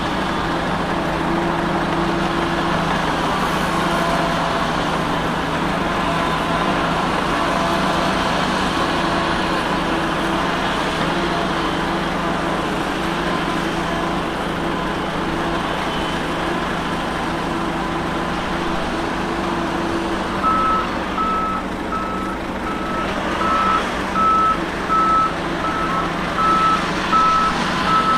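Heavy earthmoving machine's diesel engine running steadily; about two-thirds of the way through, a reversing alarm starts beeping at even intervals as the machine backs up.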